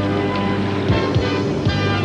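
Drama soundtrack music: held chords over a steady bass note, with a few quick pitch swoops about a second in and near the end.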